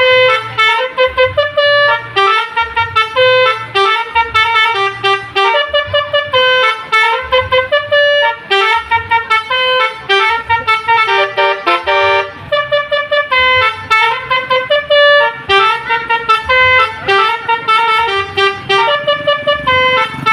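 Telolet multi-tone bus horn playing a fast melody of short, loud horn notes, one after another, with a low pulsing beneath.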